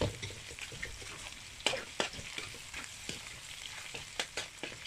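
Food sizzling as it fries in a pan, with a few sharp, irregular clicks and knocks of a utensil against it.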